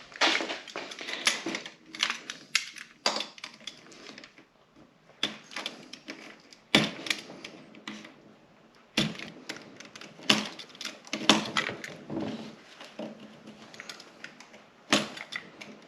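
Irregular clicks, knocks and light rattles of parts and tools being handled while fitting the rubber side-panel latch straps on a snowmobile.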